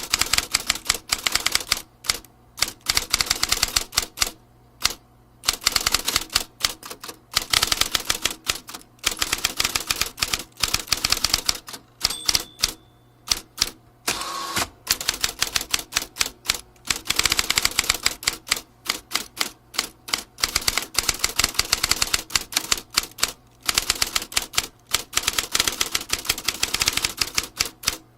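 Vintage typewriter being typed on: rapid runs of key strikes clacking, broken by short pauses between runs.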